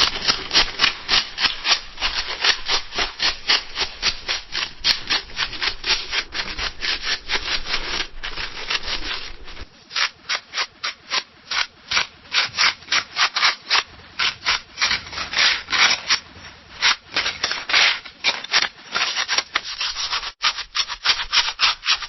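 Scissors cutting through paper: rapid, repeated snips, several a second, with a short break near the end.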